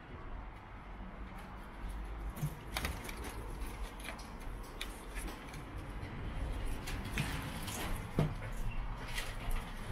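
Footsteps and small knocks of a person walking with a handheld camera, over a low steady rumble; the clicks grow more frequent after a couple of seconds, with a few sharper knocks near the end.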